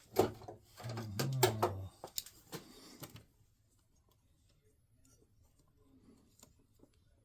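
Hands working on small parts and wiring: a cluster of sharp clicks and rustles with a short low hum about a second in, then only faint scattered ticks from about three seconds on.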